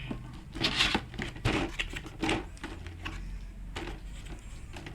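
A cardboard collector's box being opened and handled by hand: a few short scrapes, taps and rustles spaced out over a steady low hum.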